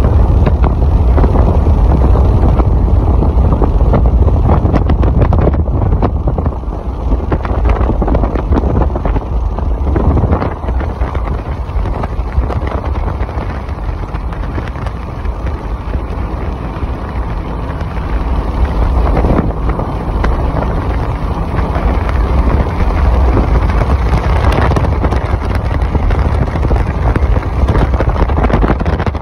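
Loud rush of wind buffeting the microphone, with the low rumble of a car driving in a storm. It eases somewhat in the middle.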